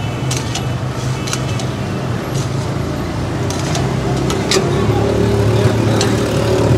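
Steady mechanical hum of the machine that drives the central shaft in the iron chikki pan, growing a little louder in the second half. A metal spatula clinks and scrapes against the pan through the sticky peanut-jaggery mix, in a scatter of sharp ticks.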